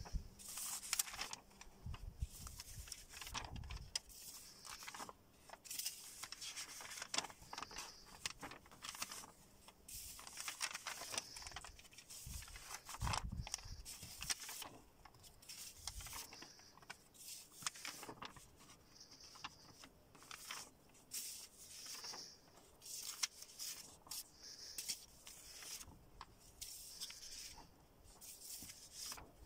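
Sheets of paper rustling and sliding against each other as a stack of drawings is leafed through by hand, in many short irregular scrapes.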